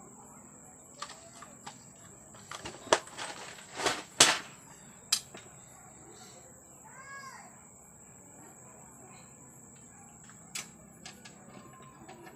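Small metal crimp terminals rattling and clicking in a plastic parts tray as a hand sorts through them, with a cluster of sharp clicks a few seconds in and a few scattered clicks near the end. A steady high whine runs underneath.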